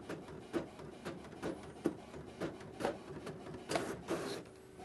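Ricoh GX7000 gel-ink inkjet printer printing a configuration page: a run of short mechanical strokes about two a second as the print head and paper feed work. Near the end comes a longer, louder whir as the printed sheet feeds out, then a steady low hum.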